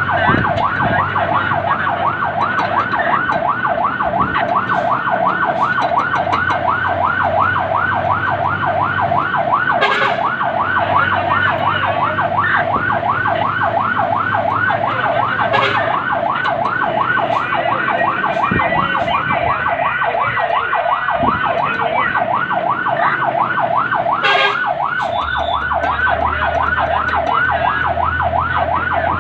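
Fire truck siren on a fast yelp, its pitch sweeping up and down several times a second without a break, over the truck's engine and road noise. A few brief clicks sound along the way.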